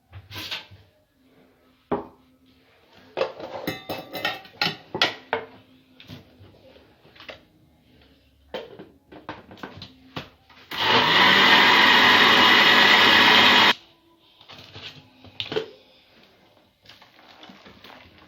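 Kitchen clatter of bowls, cups and utensils, then an electric mixer runs for about three seconds, whipping cake batter, and stops suddenly before more light knocks.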